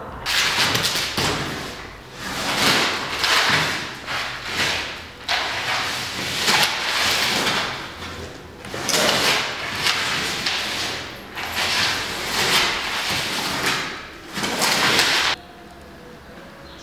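Large sheets of paper crumpling, rustling and tearing in loud, irregular surges, cutting off suddenly near the end.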